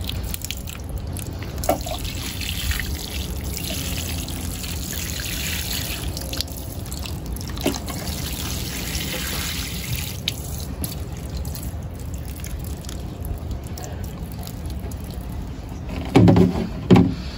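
Water sprinkling and trickling from a plastic watering can's rose onto potting soil and chrysanthemum cuttings, drenching the pots thoroughly.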